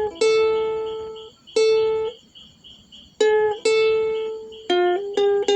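Ukulele played fingerstyle: single plucked melody notes, each left to ring and fade, spaced out at first and coming in quicker succession near the end.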